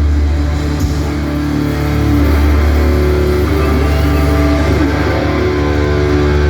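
Live hardcore punk band playing loud, with distorted electric guitars and bass holding long notes.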